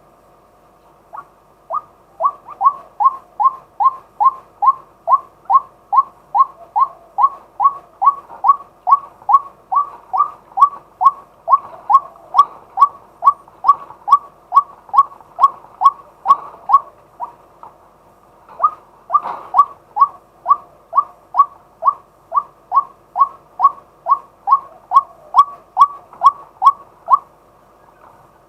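Male white-breasted waterhen calling: a long run of short, even notes at about three a second, breaking off for about a second past the middle, then going on and stopping shortly before the end.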